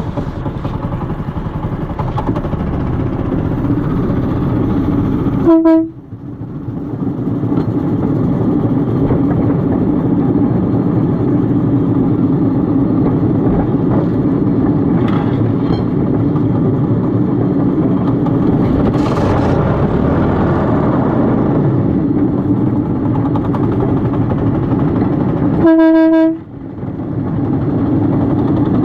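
Chainsaw's small two-stroke engine running steadily under load while cutting brush and wood. Twice it gives a short, clear high-pitched tone, each followed by a brief drop in level that builds back up.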